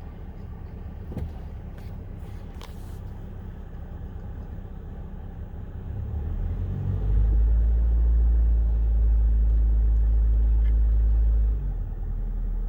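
2005 Honda Civic DX's four-cylinder engine running after a rod-bearing repair for rod knock, a steady low rumble. About seven seconds in it grows much louder and stays so for some four seconds, then drops back shortly before the end.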